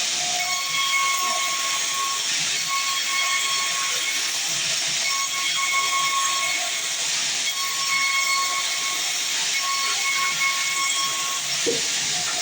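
Sawmill band saw cutting through a dense log: a steady hissing rush with a high whine that breaks off and returns several times.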